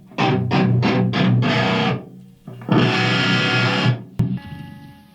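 Electric guitar through an amplifier with moderate distortion, playing a riff. A run of short, quickly stopped chords is followed by a held chord that is cut off abruptly near four seconds, then a click and fainter ringing notes.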